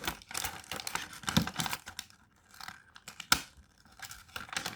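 A goodie-bag package being torn open by hand, with irregular tearing and crinkling of the wrapping, then a sharp tap a little past halfway through.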